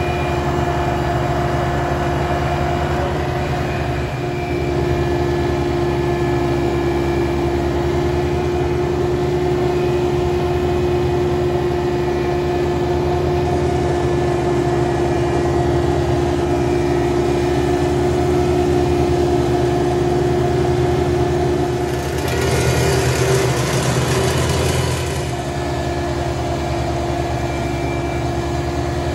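John Deere 755 compact tractor's three-cylinder diesel engine running steadily under the seat while mowing. A louder rush of noise comes in for about three seconds near the end.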